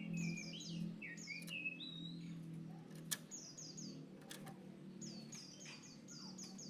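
Oriental magpie-robin (kacer) singing: quick runs of three to five high downslurred whistles, mixed with lower slurred whistled notes, over a faint steady low hum. A single sharp click sounds about three seconds in.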